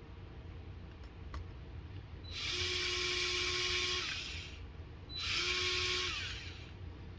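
DeWalt power driver running in two bursts of about two seconds and a second and a half, spinning in the small screws of a plastic beadlock ring on an RC truck wheel.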